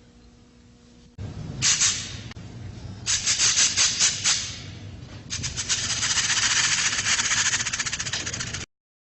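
A rattling, shaking noise: short bursts of rapid rattle strokes, then a steady dense hissing rattle for about three seconds that cuts off suddenly near the end.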